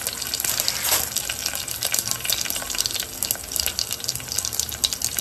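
Hot oil sizzling in a clay pot as mustard seeds, cumin, fenugreek and slit green and dried red chillies fry for a tempering: a steady hiss full of small crackles and pops.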